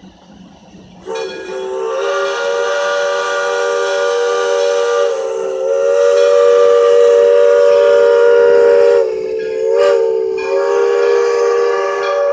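Steam whistle of a Shay geared steam locomotive blowing one long, loud blast from about a second in, several notes sounding together as a chord. It falters briefly about nine seconds in, wavering in pitch, then sounds on steadily.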